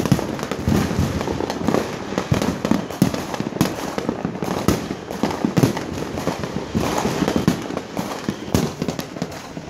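Many fireworks and firecrackers going off at once: a continuous stream of overlapping bangs and crackles with no pause.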